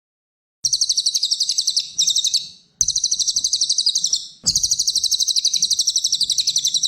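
Cililin songbird singing: rapid, evenly pulsed high trills of about ten notes a second, in four bursts with brief breaks between them. This is a masteran recording played to tutor other songbirds.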